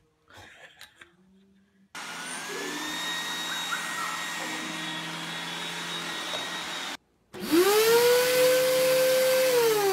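Vacuum cleaners running. From about two seconds in, a robot vacuum gives a steady whir with a thin whine. After a short break, a louder vacuum cleaner is switched on: its motor whines up in pitch, runs steadily, then begins to wind down near the end.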